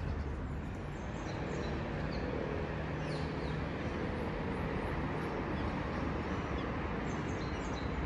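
City street ambience: a steady hum of traffic, with small birds chirping now and then.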